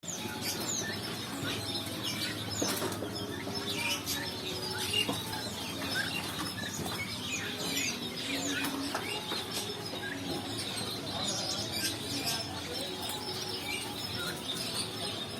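A group of white quail chirping constantly, many short overlapping high squeaks, with rustling and fluttering wings.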